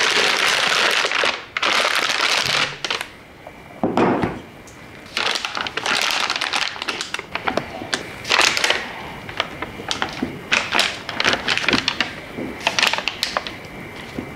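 A plastic pastry bag crinkles as it is stretched over a jar. After a thump, a spatula scrapes thick choux dough into the bag, with irregular scraping, clicks and plastic rustling.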